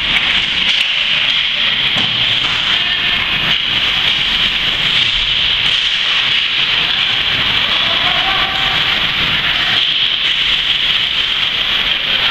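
Ice hockey game ambience in an indoor rink: a steady hiss dominates, with scattered faint clacks of sticks, puck and skates on the ice.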